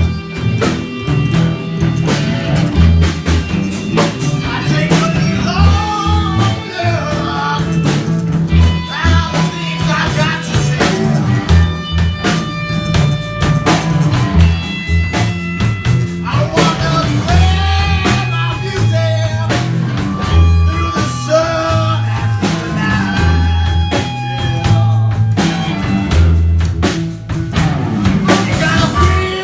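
Live band playing a blues-rock number, with electric guitar over a steady drum kit beat.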